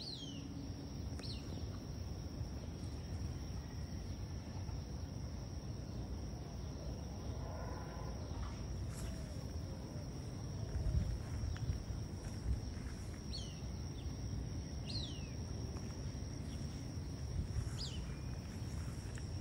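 Outdoor ambience: a steady high-pitched insect drone, with short downward-sliding bird chirps a few times, over a low background rumble.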